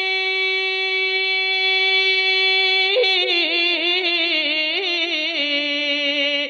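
A man's voice singing a naat, holding one long vowel at a steady pitch for about three seconds, then carrying it on in wavering, ornamented turns.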